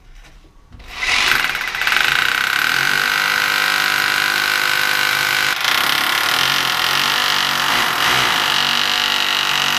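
Cordless drill drilling into a concrete wall. It starts about a second in and runs steadily with a high whine, which shifts upward in pitch about halfway through.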